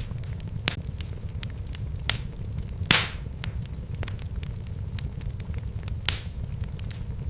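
Wood fire in a fireplace crackling: a steady low rumble of the flames with frequent sharp pops and snaps, the loudest a longer pop about three seconds in.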